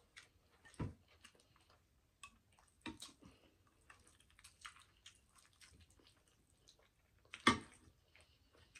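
Close-miked eating sounds: soft wet chewing and mouth clicks while eating chicken Alfredo pasta, with scattered light clicks. Near the end comes one sharp clack, the loudest sound, from the plastic fork against the glass baking dish.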